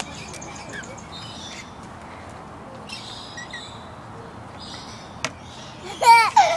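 A bird calling: a few soft short chirps, then one loud wavering squawk near the end.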